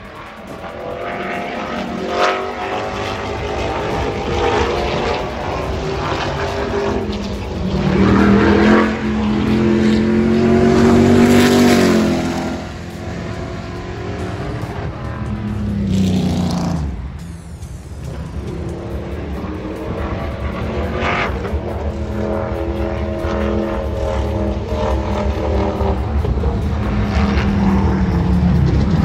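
Race car engines running laps on a short asphalt oval, their pitch rising and falling as they come past and pull away. It is loudest about a third of the way in and again just past halfway, with a short lull soon after.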